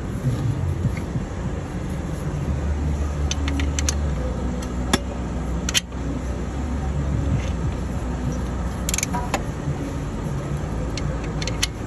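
Steady low engine rumble from another vehicle, strongest from about two seconds in to about eight seconds, with scattered light metal clicks and clinks of hand tools and tensioner pins being handled.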